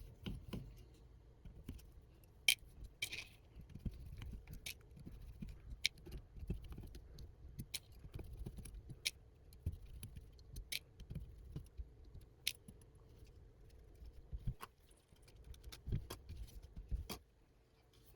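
Propeller screws being undone and the props lifted off a small FPV quadcopter: irregular light clicks and taps of small metal parts and plastic, over handling noise.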